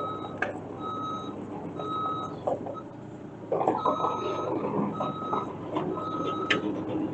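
Bobcat E32 mini excavator's travel alarm beeping about once a second as the machine tracks, over the steady running of its diesel engine and a few clanks from the tracks.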